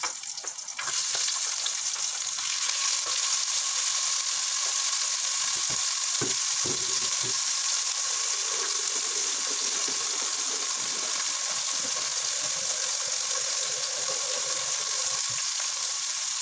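Small pieces of beef sizzling steadily in hot oil in a stainless steel pot. The sizzle comes up about a second in, with a few light knocks about six to seven seconds in.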